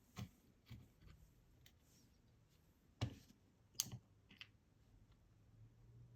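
A few small, sharp clicks and taps, scattered with near silence between: lock pins and a tool handled while the ASSA 700 lock cylinder is taken apart.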